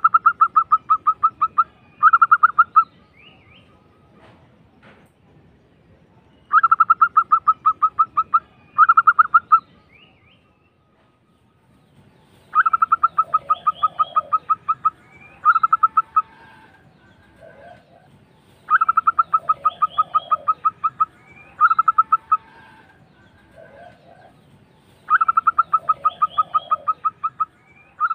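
Zebra dove (perkutut) singing its rolling, rapidly pulsed cooing song: five phrases about six seconds apart, each a long trill followed by a shorter one. Fainter, lower calls come between the phrases from about halfway through.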